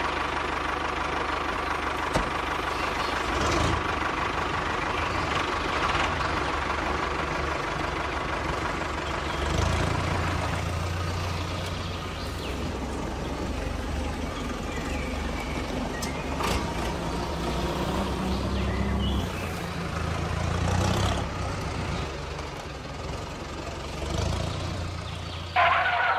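Toy tractor engine sound, a steady diesel-like running rumble that gets heavier from about ten seconds in. A thin whine sits over it in the first few seconds, and there is a short louder blare near the end.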